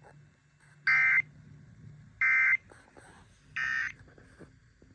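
Emergency Alert System end-of-message data tones: three short, raspy bursts of warbling digital tone, each about a third of a second long and a little over a second apart. The third burst is quieter. The sequence signals the end of the tornado warning alert.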